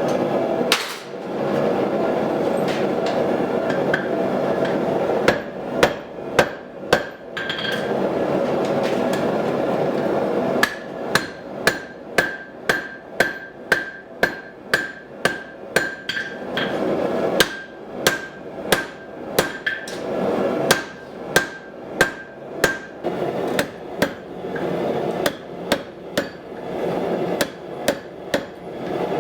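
Blacksmith's hammer striking steel on an anvil while forging an axe head, with a steady run of about two blows a second through the middle and the anvil ringing at one pitch on each blow. A loud steady rushing noise fills the first third and returns near the end, with scattered blows over it.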